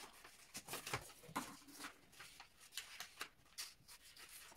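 Large sheet of pattern paper rustling in short, irregular bursts as it is handled and shifted on a cutting mat.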